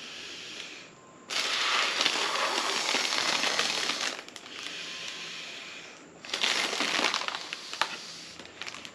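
Long breaths blown through a plastic straw into a foil letter balloon to inflate it: two blows, the first about three seconds long and the second about a second and a half, with the foil crinkling.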